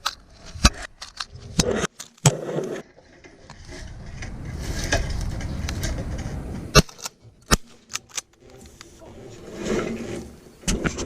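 Close handling noises: scattered sharp clicks and knocks over a rustling hiss that swells in the middle and again near the end.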